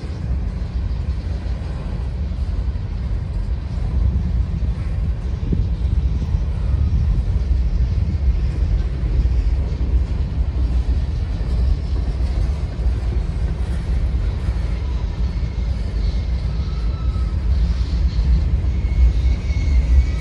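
Slow freight train of covered hoppers and tank cars rolling past close by: a steady low rumble of steel wheels on rail, with faint high squeals from the wheels near the end.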